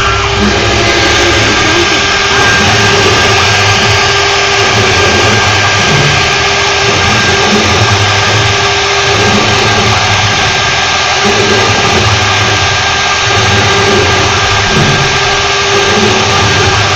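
CNC woodworking lathe running steadily, turning and cutting a wooden workpiece: a continuous loud machine noise with a steady whine held through it.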